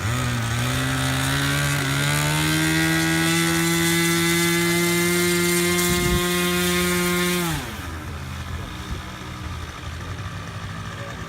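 Electric RC P-51 Mustang's motor and propeller whining loudly in flight. The whine climbs slightly in pitch over several seconds, then drops sharply and falls away about seven and a half seconds in as the plane passes and recedes.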